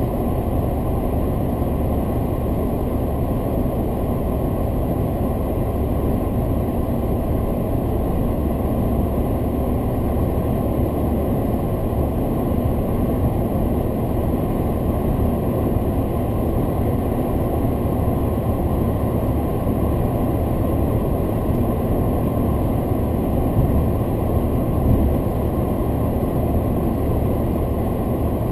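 Steady road and engine noise inside a car's cabin at highway speed, a low drone that holds level throughout, with a couple of slight bumps near the end.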